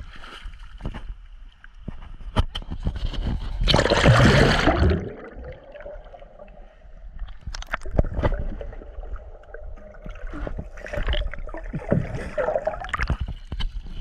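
Creek water sloshing and gurgling around a GoPro dipped at and below the waterline, with small knocks and splashes, and a loud splash about four seconds in.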